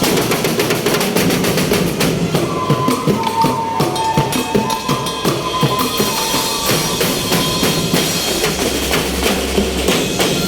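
A drum band playing snare and bass drums together in a fast, steady beat, with a held high note over it for a few seconds in the middle.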